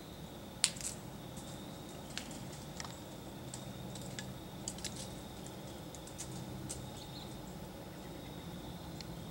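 Scattered light clicks and rustles of handling noise as the camera is moved, with one sharp click about half a second in, over a faint steady high tone.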